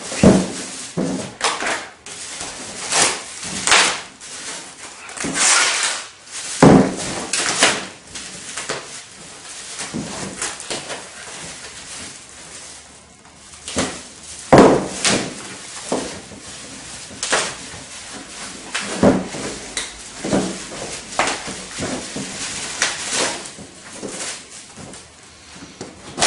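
Packing paper and foam wrap crinkling and tearing as a new bike is unwrapped, with irregular knocks and clunks from handling the parts.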